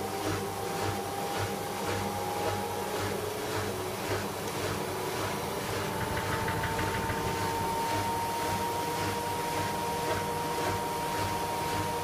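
Hoover WDYN 11746 PG8 washer-dryer spinning its empty drum, driven by its inverter motor: a thin steady whine that rises slowly in pitch, over a low pulsing hum about three times a second.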